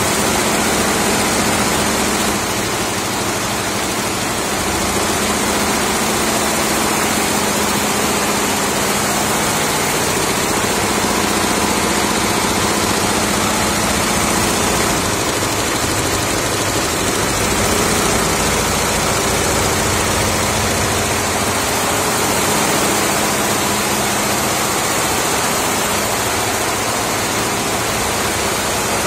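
68-head, six-needle-per-head industrial embroidery machine running, all its needle heads stitching at once in a steady, dense mechanical noise with a faint low hum.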